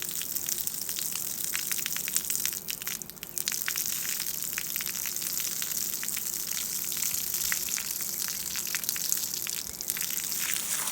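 Heavy water splashing steadily, a dense patter of many sharp drop impacts, with a brief lull about three seconds in.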